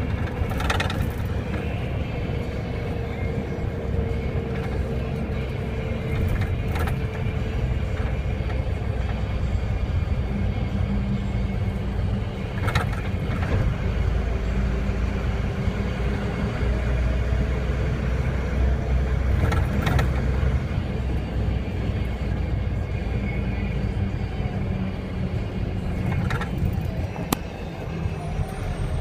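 Steady low rumble of a large road vehicle's engine and tyres, heard from inside the cab while driving at highway speed. A few short sharp clicks or rattles cut through it.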